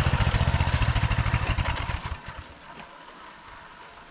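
Small minibike engine idling with a fast, even pulse, then shut off about two seconds in.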